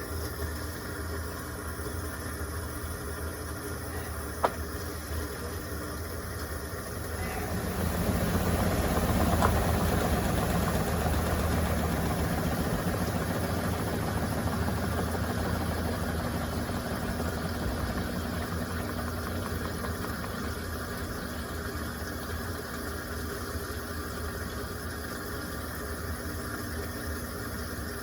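Electrolux Turbo Compacta 7 kg washing machine running its drain and spin cycle: a steady motor hum, a sharp click about four seconds in, then a surge of rushing water from about seven seconds that slowly eases off as water is driven out.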